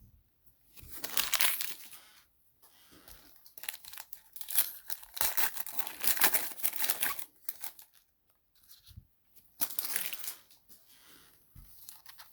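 Plastic trading-card pack wrappers crinkling and tearing as packs are ripped open and handled, in irregular bursts with short pauses between.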